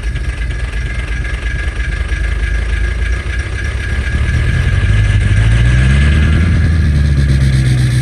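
Ford Power Stroke diesel engine running at the exhaust just after a cold start in freezing weather, having finally caught with ether and a hair dryer's help. About halfway through, the revs rise and the engine gets louder and holds there.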